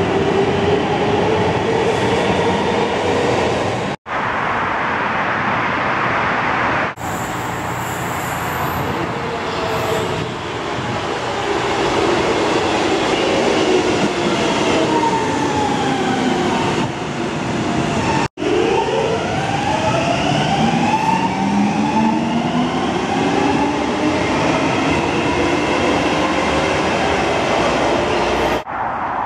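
Helsinki Metro electric trains running through stations: steady wheel-on-rail rumble under the whine of the traction motors. The whine glides down in pitch as a train slows into a platform, then rises in pitch as a train gathers speed.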